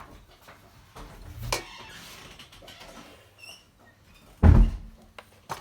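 Handling noises of parts and tools being moved: scattered clicks and scraping, a short squeak about three and a half seconds in, and one heavy thump about four and a half seconds in, the loudest sound.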